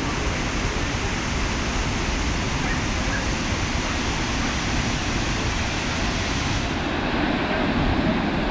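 Steady roar of a 150-foot waterfall, water crashing down. The high hiss thins out about seven seconds in.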